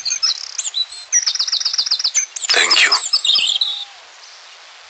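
Birds chirping, with a quick run of high repeated notes about a second in and more chirps after it; the chirping stops about four seconds in, leaving a faint hiss.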